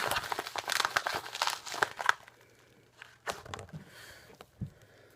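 Plastic toy packaging crinkling and rustling as a figure is handled and put back into it. The crinkling is dense for about the first two seconds, then thins to a few soft rustles and knocks.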